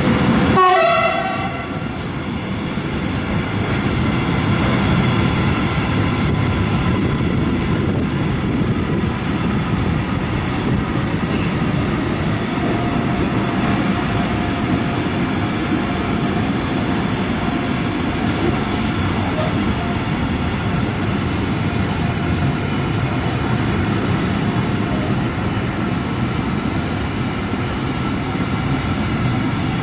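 Container freight train wagons rolling past at speed in a steady, loud rumble and rattle. About a second in, a short horn note drops steeply in pitch and stops.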